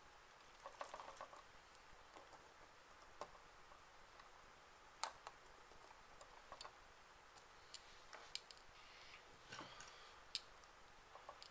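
Faint, scattered clicks and taps of small parts and hand tools being handled, about a dozen irregular sharp ticks over otherwise near silence.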